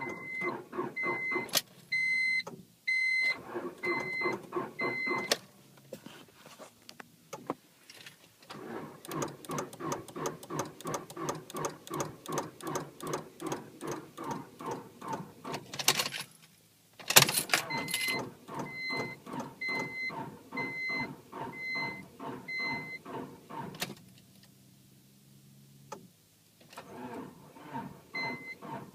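1999 Honda Civic's starter cranking the engine in several long runs, the engine turning over evenly about four times a second without catching: a crank-but-no-start. A warning chime beeps about twice a second during parts of the cranking, and a few sharp clicks come between the runs.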